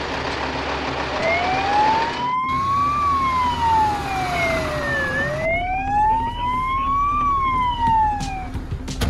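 A siren wailing, its pitch sliding slowly up and down twice. It starts about a second in over a rushing noise that cuts off about two and a half seconds in.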